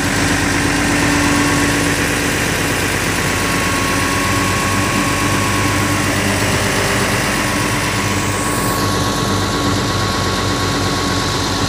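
Komatsu PC500-10 excavator's diesel engine running steadily, heard up close from the engine compartment, during the performance test after its 500-hour service.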